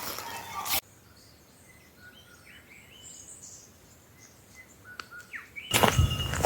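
Forest birds giving scattered short chirps and calls, faint. Near the end, loud footsteps crunching on the ground start.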